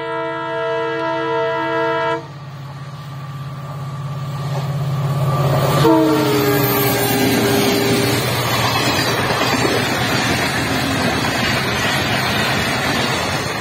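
Indian Railways diesel locomotives approach with a long, steady horn blast that cuts off about two seconds in, while the engine drone builds. As the locomotives pass, a second horn blast falls in pitch. It is followed by the loud, steady rumble and rattle of tank wagons rolling by.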